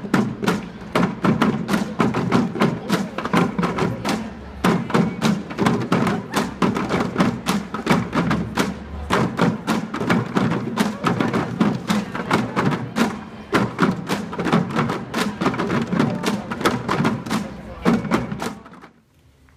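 Drums of a marching school drum band playing a fast, steady beat of many strokes a second; it cuts off suddenly near the end.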